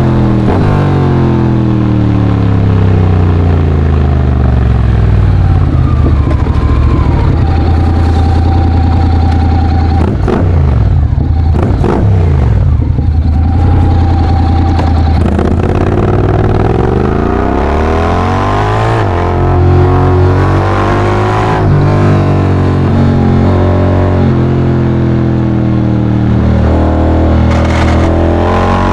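Honda X-ADV 750's parallel-twin engine breathing through a full Akrapovic exhaust at road speed. The revs rise and fall again and again as the scooter accelerates and slows through the bends.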